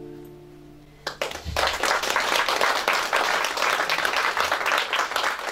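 The last chord of a nylon-string classical guitar rings and fades; about a second in, an audience breaks into applause.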